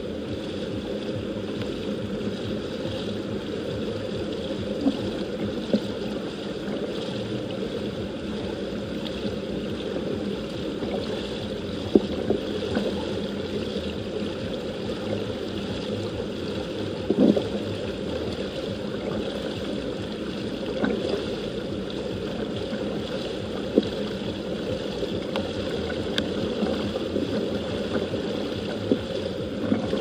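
Water running steadily, with scattered sharp pops.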